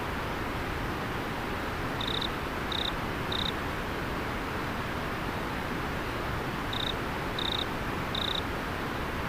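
River water flowing steadily, with a cricket chirping over it in two sets of three short, high chirps, the first set about two seconds in and the second about seven seconds in.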